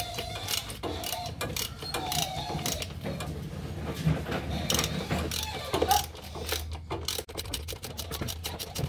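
Ratchet wrench clicking in quick, irregular runs while a fuel filter bolt is tightened.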